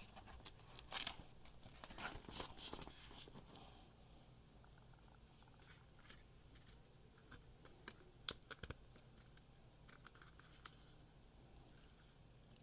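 Faint handling of a trading card and its plastic sleeve: soft rustling with scattered light clicks and a few sharper ticks, as the card is slid into the sleeve.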